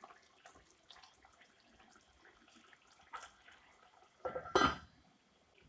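Metal cookware clatter: a light clink about three seconds in, then a louder clank with a brief ring near the end, like a lid being set back on a cooking pot.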